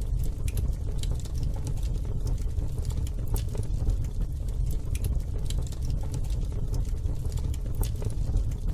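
Fire burning in a barbecue grill, crackling with scattered sharp pops over a steady low rumble.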